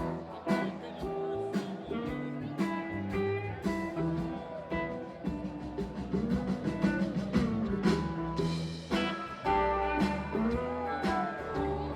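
Live blues-rock band playing: electric guitar with notes gliding up and down in pitch over bass and a steady drum kit beat.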